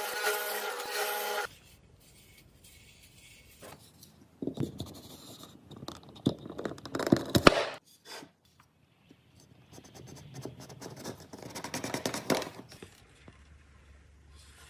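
Background music that cuts off about a second and a half in, followed by two stretches of scraping on wood from hand-tool work, the first with a few sharp clicks.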